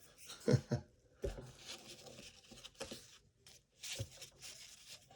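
Baseball cards and paper wax-pack wrapping being handled: faint rustling with scattered light taps and clicks.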